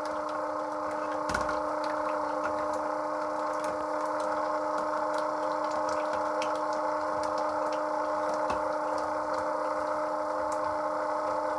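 Battery-powered oil-changer transfer pump running with a steady hum, sucking hard on thick, old engine oil drained from a Cat 3208 diesel. Faint scattered ticks sound over the hum.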